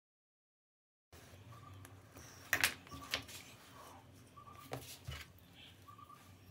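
Pine wood blocks and drawing tools being set down and handled on a hard tabletop: a few sharp knocks and taps, the loudest pair about two and a half seconds in. Faint short high chirps repeat about every second and a half under it, after a second of dead silence at the start.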